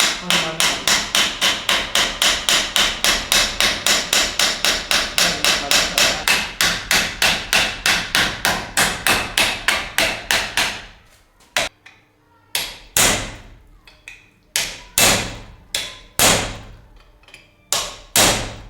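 Hammer striking metal: a fast, even run of blows about four to five a second, then after a short pause a few slower, separate strikes.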